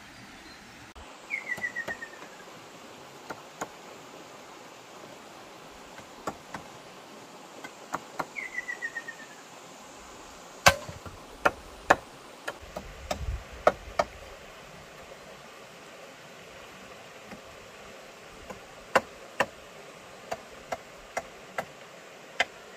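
Sharp wooden knocks on a bamboo pole ladder in irregular runs, the loudest about ten seconds in and again near the end. A bird gives a short falling trill twice, about a second and a half in and again at about eight seconds.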